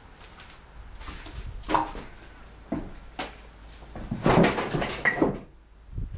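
Footsteps knocking and crunching on a debris-strewn wooden floor: a few separate knocks, then a longer stretch of crunching about four seconds in.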